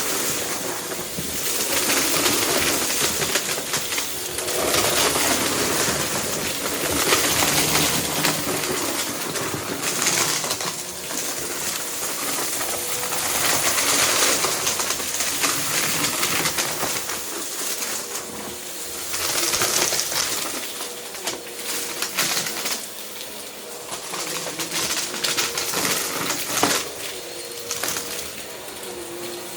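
Vacuum cleaner running, its motor hum and airflow rising and falling every few seconds, with small debris clicking and rattling as it is sucked up.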